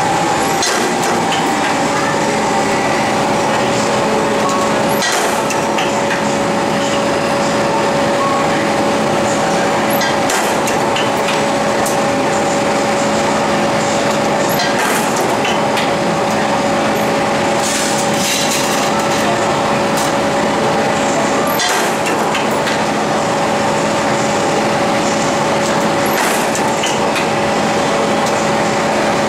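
Flywheel-driven mechanical punch press running with a steady hum, and a sharp metallic clack every few seconds as the ram strokes, stamping the corners of perforated brass grater blanks.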